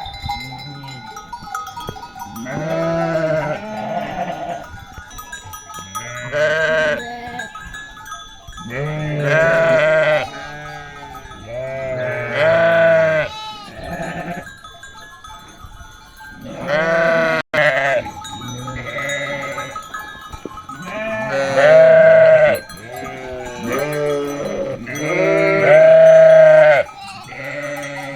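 A flock of sheep bleating, one loud wavering bleat after another and sometimes overlapping, with bells ringing faintly among them.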